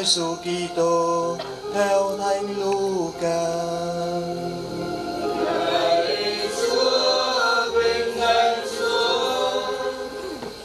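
Voices singing a slow liturgical chant, choir-like, with long held notes.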